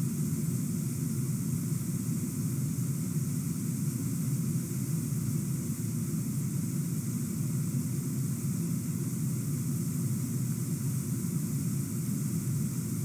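Steady rushing noise, even in level, with no distinct sounds standing out.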